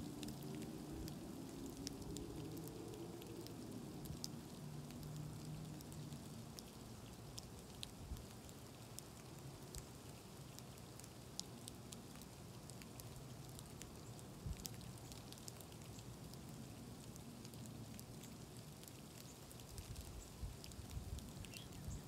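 Faint scattered ticks of winter-storm precipitation falling on snow, over a steady hiss. A low distant engine hum rises and fades during the first several seconds.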